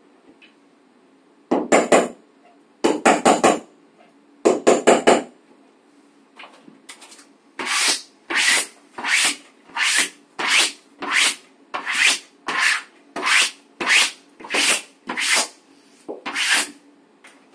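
Wallpaper being rubbed and smoothed against the wall with a sponge and hand tool. There are three short bouts of quick scrubbing, then a steady run of about fifteen rasping strokes at roughly two a second.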